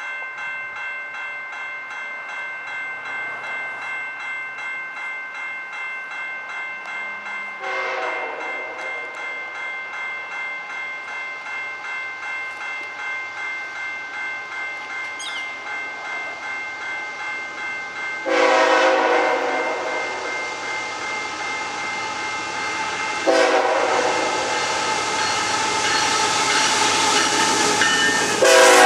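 Canadian Pacific coal train approaching at speed, the lead ES44AC locomotive sounding its air horn: a shorter blast about 8 seconds in, then two long blasts and a short one, as for a grade crossing. Over the last few seconds the rushing noise of the locomotives and wheels on the rails grows louder as the train passes. Beneath it all a steady ringing of several tones pulses regularly.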